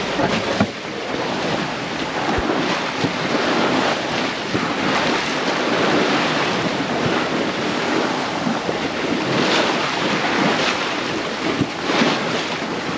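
Water rushing and splashing along a sailboat's hull as it moves, with wind buffeting the microphone, in a steady wash with gentle surges.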